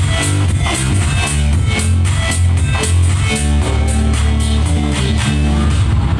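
A rock-style song with a heavy bass line and a steady drum beat, played loud through a Sony LBT XB8AVK party speaker system.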